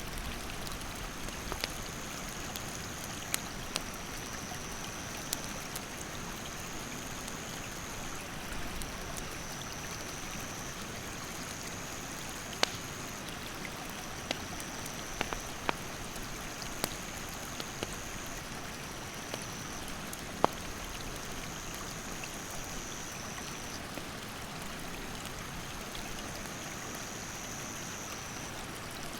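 A stream rushing steadily, with a wood campfire giving sharp crackles and pops at irregular moments, the loudest about halfway through and two-thirds of the way in. Over both, an insect calls in a continuous high trill that steps slightly up and down in pitch every second or two.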